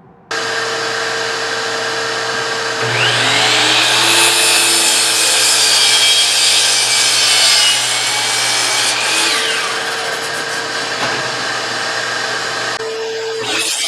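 Electric power saw starting up and running, then cutting through wood for about six seconds, louder under load with its pitch sagging and then recovering as the cut finishes. It runs on unloaded afterwards.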